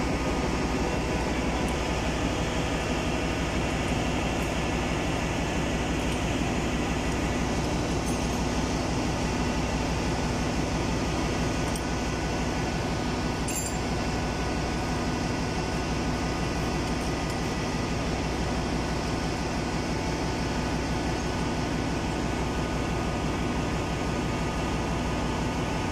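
Steady drone of ship's engine-room machinery: a constant low hum with several steady tones. There is one faint click near the middle.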